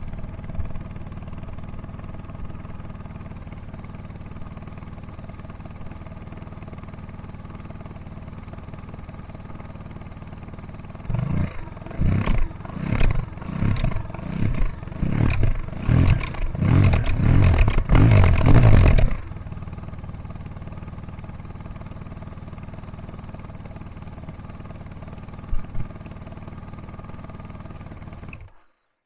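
Honda VFR1200X Crosstourer's V4 engine through a Leo Vince Evo One carbon exhaust, idling steadily. About a third of the way in it is blipped through a run of about eight quick revs, each louder than the last, then it settles back to idle. The sound cuts off suddenly near the end.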